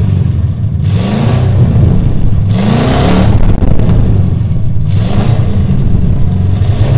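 Car engine revved again and again over a steady low rumble, each rev a rising note with a rasp of exhaust, about every two seconds.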